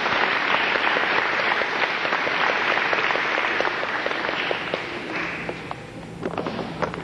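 Audience applauding, full at first and thinning to scattered claps over the last couple of seconds.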